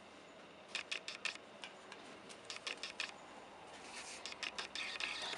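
Thin clear plastic CPU clamshell packaging being handled, giving three clusters of light clicks and crackles.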